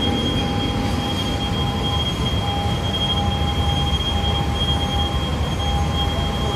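Steady machinery drone in a large aircraft maintenance hangar: a dense low rumble with a constant high-pitched whine and a fainter mid-pitched tone that comes and goes.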